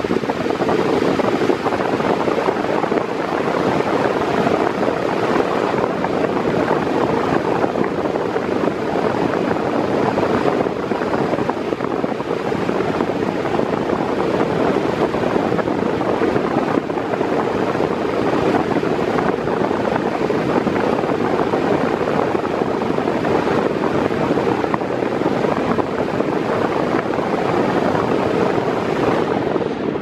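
Mondial Maxi Power 40 cm 140 W floor fan running at top speed: a steady, even rush of air.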